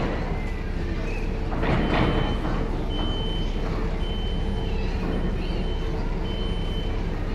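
Ferry engine running with a steady low hum, and from about three seconds in a high electronic warning beep sounding about once a second, each beep about half a second long.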